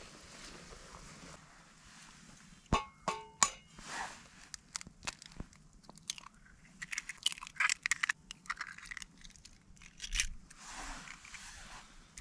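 Objects being handled: a few sharp clicks that ring briefly about three seconds in, then a spell of crunching and rustling.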